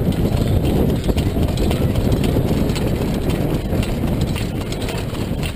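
Wind buffeting the microphone of a camera mounted on a harness-racing sulky, a steady low rumble, with the racehorse's hoofbeats on the dirt track underneath.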